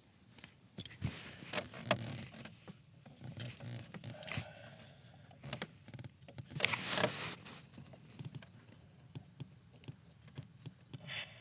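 Scattered clicks, taps and rustling from hands working on small parts under a car's dashboard, with a louder burst of rustling about seven seconds in.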